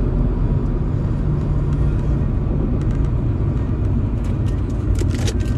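Steady low rumbling outdoor noise, with a few faint clicks near the end.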